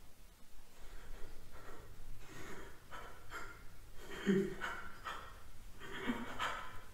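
Breathy, whispered vocal sounds in short rasping bursts, like gasps or hissed whispers, growing louder from about two seconds in.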